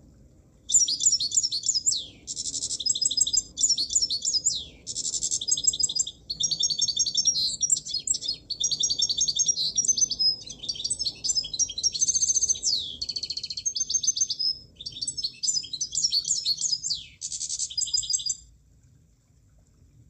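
Munia (emprit) song: a long run of high, rapid trills and chattering phrases broken by short gaps, a few notes sweeping downward. It starts just under a second in and stops shortly before the end.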